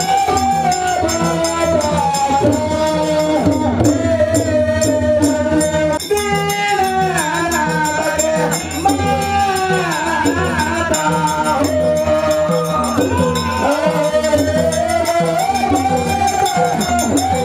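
Devotional folk singing with rhythmic percussion accompaniment, the melody held on long notes and sliding between them.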